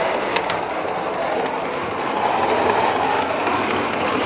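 Gas-fired live-steam model tank locomotive running along the track: a rapid, even beat of about four a second over a steady hiss.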